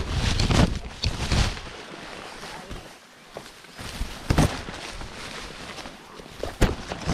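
Rustling and dull thumps of a camera being handled and carried, with a few sharper knocks, heaviest in the first second or so and again twice later.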